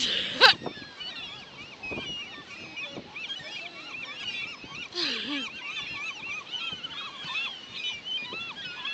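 A flock of seagulls calling over one another, with many short, overlapping squealing cries. A sharp knock sounds about half a second in, and a louder cluster of calls comes about five seconds in.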